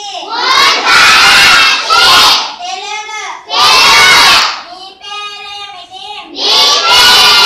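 A class of schoolchildren reciting in loud chorus, call-and-response: a single child's voice reads out a word or phrase and the whole group repeats it, three times, likely Odia phrases.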